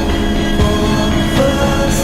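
Background music: held instrumental tones over a full low end.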